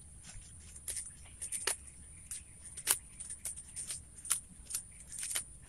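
Irregular crisp crackles and snaps of fresh green leaves and stems being stripped by hand and chewed raw, with a steady high-pitched whine in the background.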